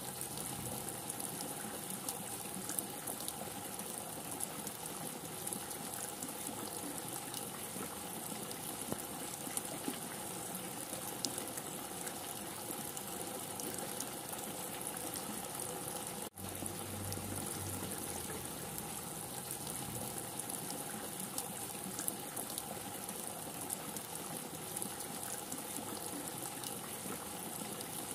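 Rain falling steadily: an even hiss with scattered sharp drop ticks. It cuts out for an instant about halfway through.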